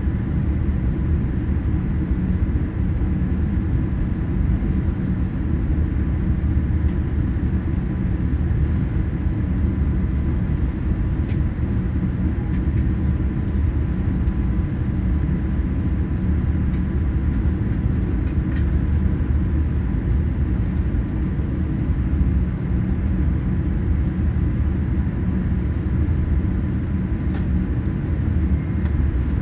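Steady low cabin rumble inside a Boeing 787-9 airliner rolling along the ground after landing, with a faint steady whine and a few light clicks.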